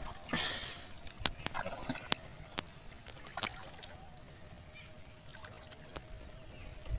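Water splashing and trickling in shallow water, with a short splash about half a second in and a few sharp clicks or knocks over the next few seconds, then quieter.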